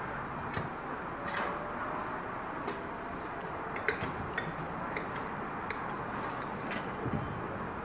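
Hand-worked railway level crossing gates swinging across the line: a scattering of sharp clicks and knocks, the loudest about four seconds in, over a steady background hiss.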